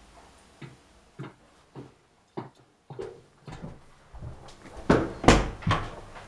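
Footsteps walking at a steady pace, about one step every 0.6 seconds, then a cluster of louder knocks and clunks near the end as a door is handled and opened.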